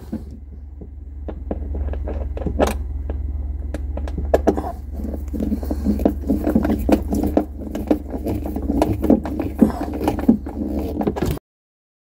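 Hand screwdriver turning the screw of a refrigerator's plastic air-filter holder: a run of short clicks, scrapes and small rattles of the tool against the screw and plastic, over a steady low hum. It all stops suddenly near the end.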